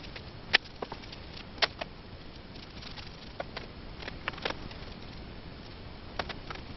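Paintbrush being worked over the wooden table frame, giving scattered sharp clicks and light taps, about ten at uneven spacing, over a steady background hiss.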